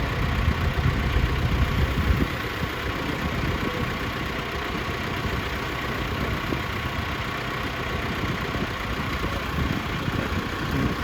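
Tractor engine running under load while pulling a plough, its low pulsing strongest for the first two seconds, then settling to a steadier, slightly quieter running.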